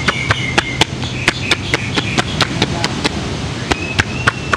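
Rhythmic percussion of a masseur's joined hands chopping on a bare back, in sharp slaps at about four a second, with a brief pause about three seconds in.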